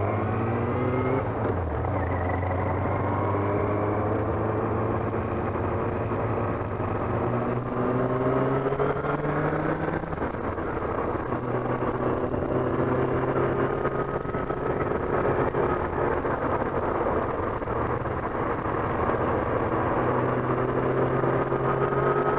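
Yamaha R6 inline-four engine pulling away, revs rising quickly in the first second or two, then climbing slowly until a gear change about ten seconds in, then running steadily. Wind rushes over the helmet-mounted mic throughout.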